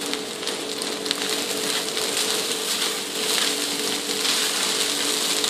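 Basmati rice and vegetables frying in a wok, a steady sizzling hiss while being stirred and tossed with a wooden spatula, with a faint steady low hum underneath.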